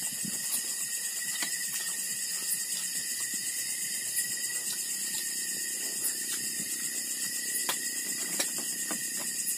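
Steady high-pitched chorus of night insects, with a few short clicks of dishes and utensils on the table.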